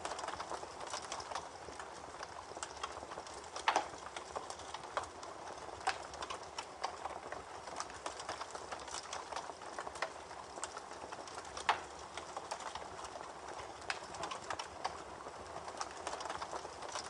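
Campfire crackling, with many small sharp pops and two louder pops about 4 and 12 seconds in, over the steady rush of a babbling creek.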